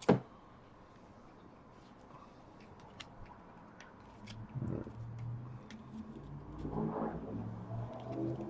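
Faint clicks and light rustling of trading cards being handled and flicked through, with a low muffled voice-like murmur in the background from about halfway.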